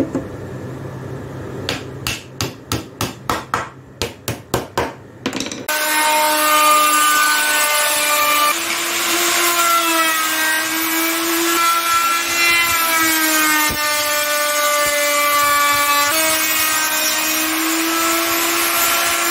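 About ten hammer taps on a wooden door frame, coming faster. Then, about six seconds in, an electric router starts up loud and runs steadily as it is guided along a wooden frame member, its whine dipping and rising slightly in pitch with the cut.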